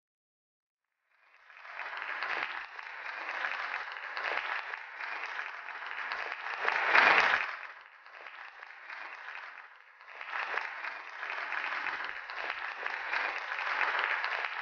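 Audience applause starting about a second in, swelling to a peak around the middle, dipping briefly, then picking up again.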